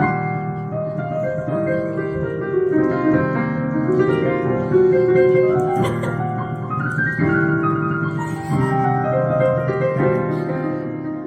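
Piano playing a flowing melody over held chords, with runs of notes stepping up and down.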